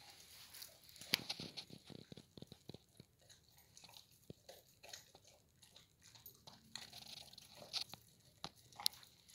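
German Shepherd puppy chewing raw beef and duck from a shallow metal pan: faint, irregular chewing with a few sharp clicks, one about a second in and another near the end.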